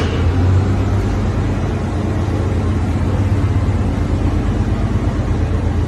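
A steady low mechanical drone with a strong low hum, starting abruptly at the beginning.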